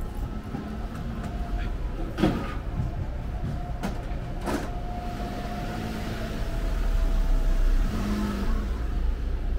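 Street traffic: a steady low rumble of vehicles, getting louder as one passes close a little past the middle, with a couple of sharp knocks early on.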